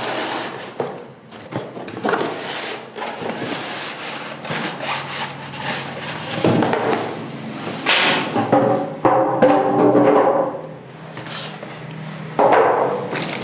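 Background music over the handling of a cardboard box and foam packing as a rechargeable table fan is unboxed, with irregular rustles and knocks.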